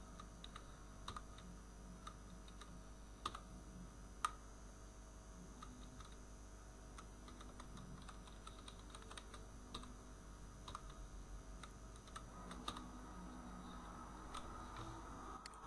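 Faint computer-keyboard typing: irregular keystrokes, with a couple of sharper key clicks about three and four seconds in.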